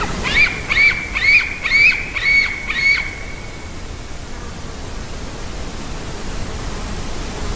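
A bird calls six times in quick succession, about two clear ringing notes a second, then stops. A steady rushing noise, like running water or wind, goes on underneath.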